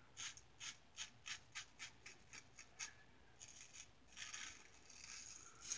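Single-edge safety razor, a Star Super Six lather catcher with a Gem blade, scraping through lathered beard stubble: about a dozen short, quick strokes, roughly four a second, then a few longer, slower strokes.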